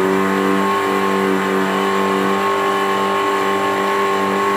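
Countertop electric blender running steadily, its motor holding one even pitch as it blends a creamy liquid mixture in the jug.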